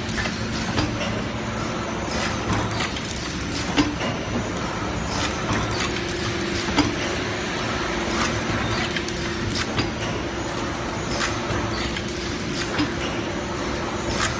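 Automatic cream sandwich biscuit machine running: a steady mechanical din with frequent sharp clicks and knocks from its moving parts. A steady low hum comes in about six seconds in.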